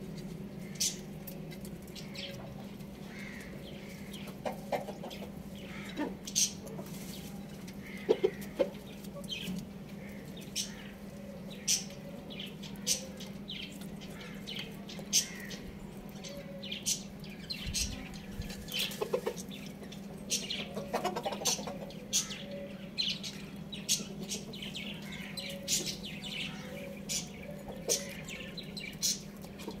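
A chicken pecking rice from a terracotta dish: many sharp, irregular ticks of the beak striking the clay, with a few soft clucks now and then.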